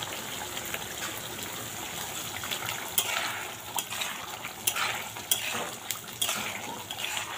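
Fish curry sizzling in a metal kadai, with a spatula stirring through the gravy and scraping and knocking against the pan several times from about halfway.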